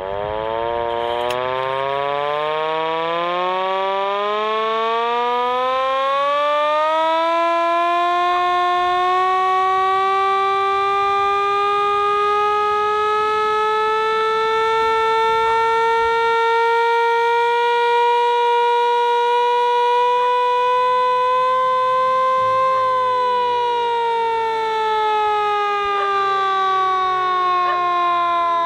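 Civil-defence air-raid siren winding up, its wail rising steeply over the first seven seconds or so. It holds near the top, creeping slightly higher, then starts to wind down about six seconds before the end.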